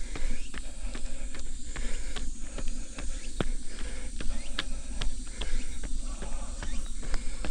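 A runner's footsteps on a trail, short sharp steps about three a second, over a steady low rumble.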